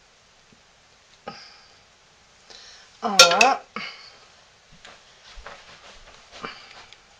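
Thick hot-process soap being scraped and pressed into a wooden loaf mold against a ceramic crock pot insert: a knock about a second in, a louder wavering squeak around three seconds in, then a run of light taps and scrapes.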